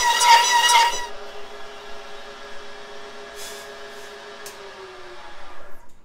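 Drill press turning a bi-metal hole saw slowly through quarter-inch stainless steel plate: a loud, high-pitched ringing squeal from the cut for about the first second, then a quieter, steady running tone with a few light clicks, which cuts off abruptly near the end.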